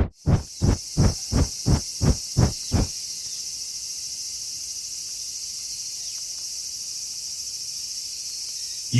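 Cartoon sound effects: a run of soft rhythmic thumps, about three a second, that stop about three seconds in, under a steady high-pitched chirring hiss.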